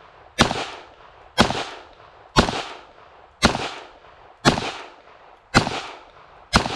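Smith & Wesson M&P 2.0 .22 Magnum pistol firing Federal Speer TNT .22 WMR rounds in slow, steady aimed fire: seven sharp shots about a second apart, each with a short fading echo.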